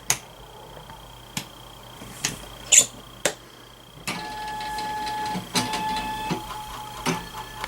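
A few sharp clicks, then from about four seconds in the motors of a three-axis gantry robot whine steadily as it drives back to its home position after power-up, with a short pause partway through.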